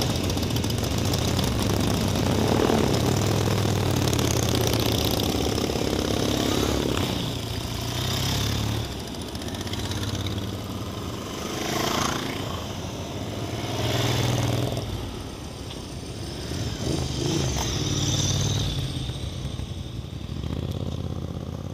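A group of motorcycles and scooters running together, then riding off past one after another, each engine swelling and fading as it goes by, until the last ones fade out near the end.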